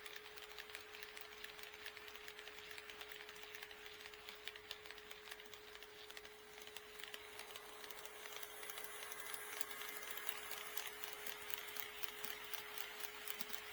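HO-scale model train running on sectional track: a rapid stream of small clicks from the wheels passing over the rail joints, with the small motor running and a steady hum underneath. It grows louder about eight seconds in as the train comes nearer.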